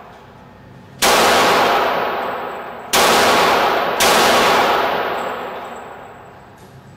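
Three shots from a Heckler & Koch USP Tactical .45 ACP pistol, about a second in, near three seconds in and a second after that. Each shot rings out with a long echoing decay. After the last shot the slide stays locked back on an empty magazine.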